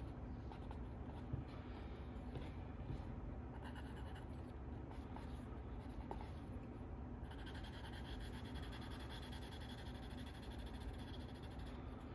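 A drawing tool rubbing and scratching across sketchbook paper while sketching, the strokes growing denser and more continuous about a third of the way in, as in shading.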